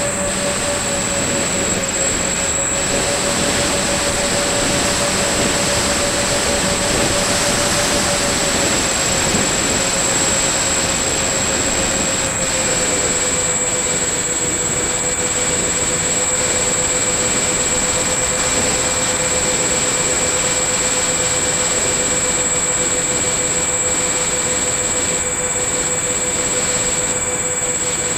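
Electric motor of a battery-powered radio-controlled model aircraft running steadily in flight, picked up by the onboard camera amid wind rush: a steady hum with a thin high whine above it, the hum dropping slightly in pitch about a third of the way through and again near the middle.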